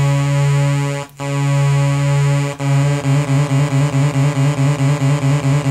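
Analog synthesizer holding one low square-wave note whose pulse width is being modulated. The note cuts out briefly about a second in and again near the middle, then from about three seconds in it wobbles evenly, about four to five times a second.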